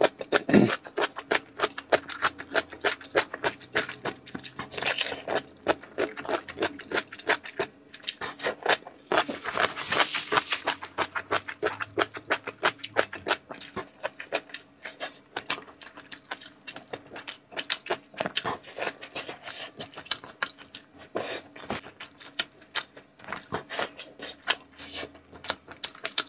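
Close-miked chewing and mouth sounds of a person eating soft food from a bowl of chili oil: a dense run of quick wet clicks and smacks, several a second. There are louder rushes of noise about five seconds in and again from about nine to eleven seconds.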